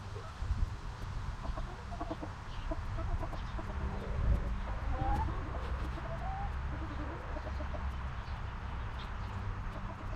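Chickens clucking: short scattered calls with a few brief rising chirps, over a steady low rumble.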